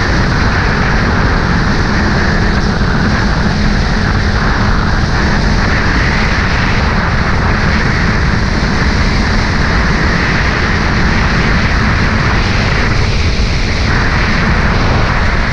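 Steady loud rushing roar with no breaks, heaviest in the low end, like wind buffeting the microphone.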